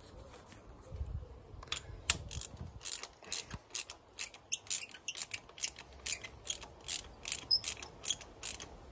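Ratchet wrench clicking steadily, about three times a second, as a spark plug is wound into the engine on a socket and extension.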